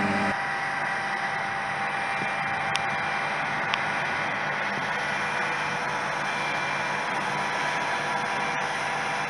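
John Deere combine harvesters working a wheat field at a distance: a steady rushing drone with a faint, even engine hum under it. Two small clicks come about three and about four seconds in.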